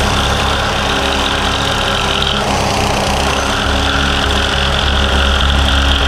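An engine running steadily at a constant speed, with a low pulsing throb.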